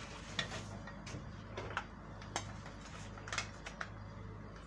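Irregular clicks and light knocks of plastic and metal parts as an opened molded-case circuit breaker is handled and its trip unit is lifted off, about six sharp clicks in all, over a steady low hum.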